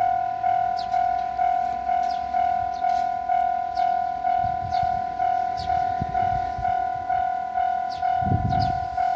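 Japanese level-crossing warning bell ringing, a steady electronic clang repeating about twice a second. Low rumbles come and go around halfway and again near the end.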